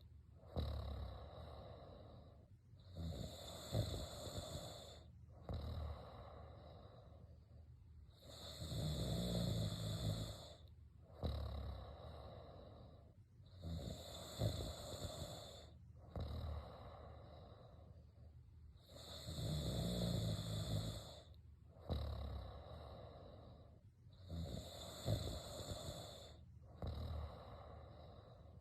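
A person snoring in slow, regular cycles: about five louder, drawn-out snores, roughly five and a half seconds apart, with a shorter, quieter breath between each.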